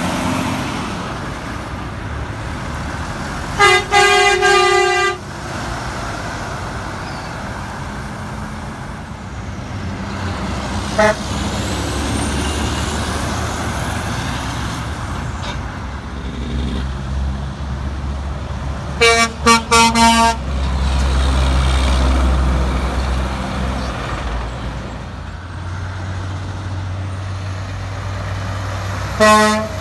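Diesel semi trucks drive past with a steady low engine rumble that swells in the middle, over which truck air horns blow. There is a long blast about four seconds in, a quick toot around eleven seconds, a burst of short toots around nineteen to twenty seconds, and two more blasts near the end.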